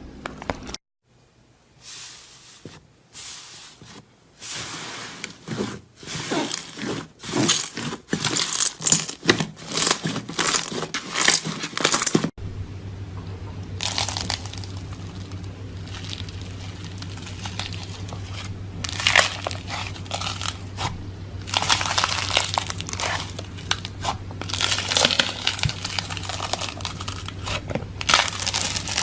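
Slime being squeezed and kneaded by hand, giving irregular runs of small crackles and pops. The handling sounds are sparse for the first few seconds and then come thick and fast. About twelve seconds in, a steady low hum joins underneath.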